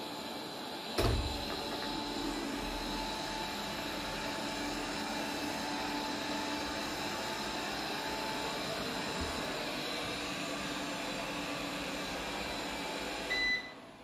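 GOOVI 1600Pa robot vacuum running: a steady whir from its suction fan and brushes. There is a sharp thump about a second in, and a short beep near the end, after which the whir drops away.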